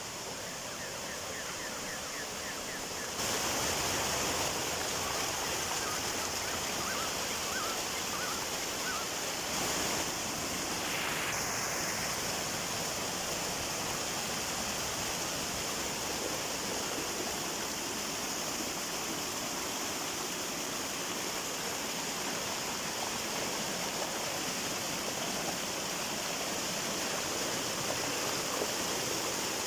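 Waterfall rushing, a steady unbroken hiss of falling water that gets abruptly louder about three seconds in.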